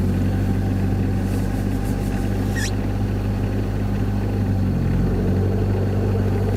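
VAZ 2110 engine idling steadily just after a cold start in a −17 °C frost. The power-steering pump is humming from the cold. A short high squeak comes about two and a half seconds in.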